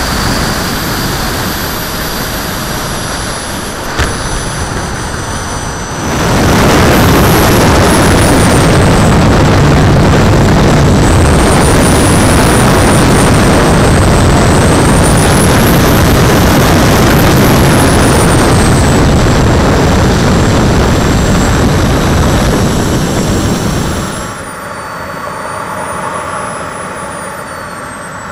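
Small model jet turbine heard from on board the RC jet, with rushing air noise. A few seconds in it jumps to a loud full-power run with a high whine rising and falling as the throttle moves; near the end it drops back to a quieter idle whine whose pitch falls as the turbine spools down.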